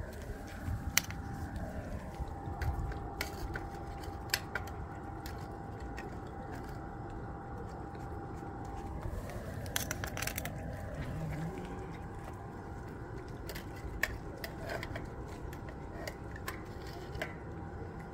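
Several stray cats eating, with scattered small clicks and crunches of chewing and a short run of them about ten seconds in, over a faint steady hum.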